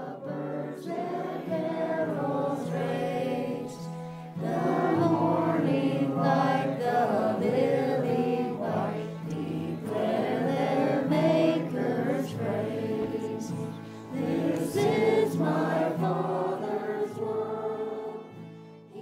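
Choral music: a choir singing in long held phrases, with brief dips about four seconds in and again near fourteen seconds, fading away at the end.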